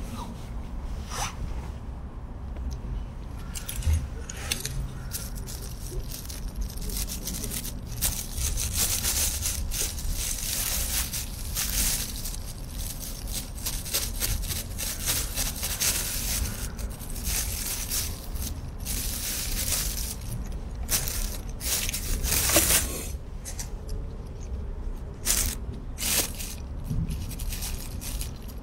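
Thin plastic bag crinkling and rustling in many short irregular crackles as ripe figs are cut on it with a pocket knife, over a steady low rumble.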